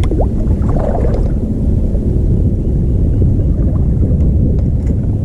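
Loud, steady low rumble on a fishing boat: wind on the microphone mixed with boat and water noise, with no engine tone standing out.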